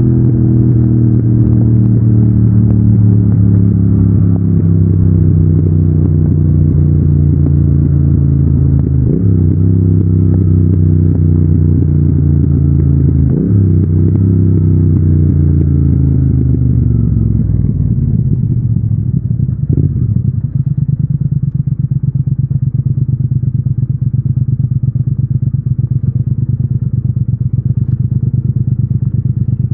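Stock Triumph Thruxton 1200 parallel-twin engine on the move, heard through a phone in the rider's backpack. The revs sag with two short blips about nine and thirteen seconds in, then fall away over several seconds and settle to a steady low-rev beat for the last ten seconds.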